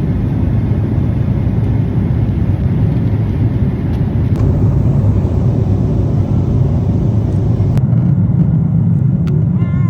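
Steady, loud low rumble of a jet airliner's cabin noise. A brief high-pitched sound comes just before the end.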